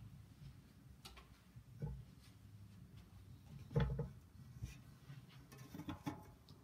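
Light wooden knocks and shuffling as a large wooden cross is handled and set in place, with a louder knock just before four seconds in and a cluster of small clicks near the end.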